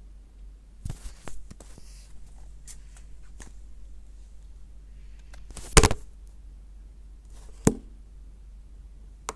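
Scattered clicks and knocks over a low steady hum, the loudest knock about six seconds in and another sharp one near eight seconds: fingers tapping and handling a tablet, picked up by its own microphone.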